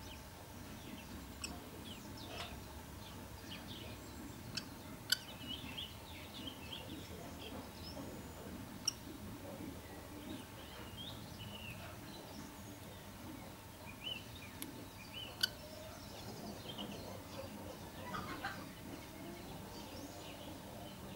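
Small birds chirping in short, scattered calls, with a low background rumble. Three sharp clicks stand out, about five, nine and fifteen seconds in.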